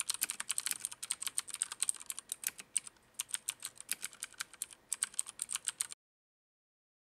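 Fast typing on a Filco Majestouch Minila mechanical keyboard with Cherry MX key switches: a quick run of sharp keystroke clicks with a brief break about three seconds in, stopping about a second before the end.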